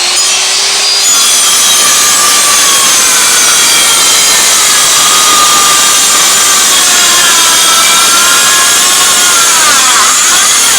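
Circular saw running and cutting through a wooden board, at a steady loud level; its whine climbs over the first second and wavers near the end of the cut.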